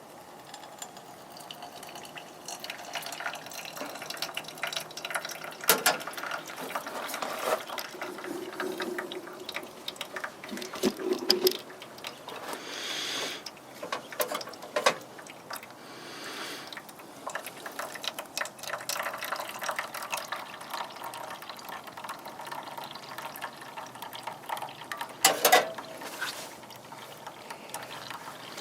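Hot water poured from a camp cooking pot into a mug fitted with a mesh coffee filter, with the pitch of the pour rising in the first few seconds. Scattered clinks and knocks of the cookware being handled run through it, the loudest about six seconds in and near the end.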